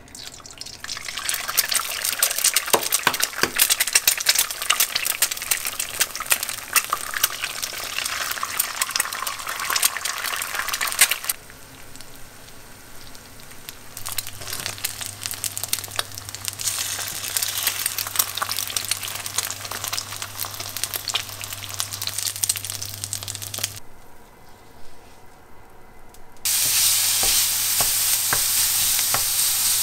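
Food frying in a pan, with hot oil sizzling and crackling around fried eggs, then minced meat sizzling as a wooden spatula stirs it. The crackle drops away briefly twice, a little over ten seconds in and again near the end. The last few seconds carry a louder, even sizzle.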